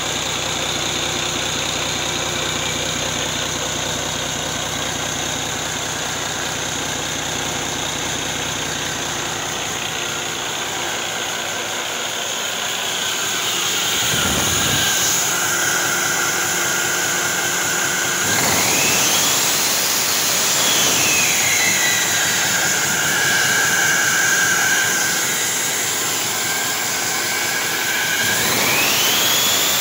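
Cummins ISX15 inline-six diesel running on a test stand, idling steadily at first. About two-thirds of the way in it is revved: the turbocharger whine climbs and falls back, and it climbs again near the end.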